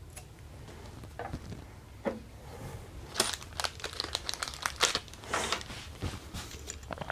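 Handling noise from a sheet of paper and the resin printer's build-plate mount being worked by hand: irregular crinkling rustles and sharp little clicks, busiest in the middle of the stretch.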